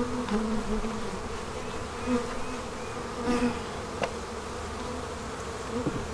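Honeybees buzzing around a hive: a steady hum, with single bees' tones shifting in pitch as they fly past close by. A single light click about four seconds in.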